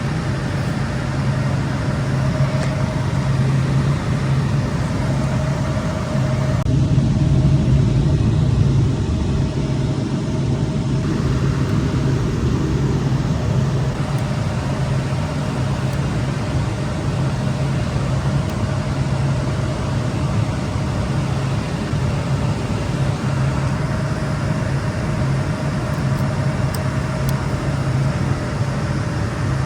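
Cooling fans of rack-mounted network equipment running, a loud steady whir over a low hum. It grows a little louder and duller for a few seconds about seven seconds in.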